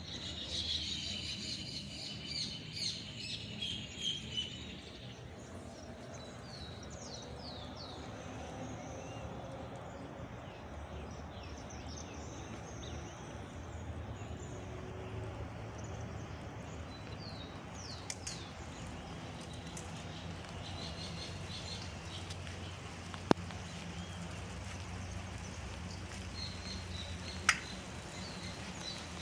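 Birds chirping and calling, busiest in the first few seconds, over a steady outdoor hiss. Two sharp clicks stand out in the second half.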